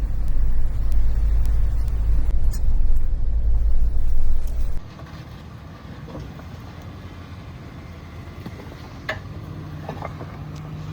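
Off-road SUV driving on a trail, a loud deep rumble that cuts off abruptly a little under five seconds in. A quieter steady engine hum with a few clicks and knocks follows.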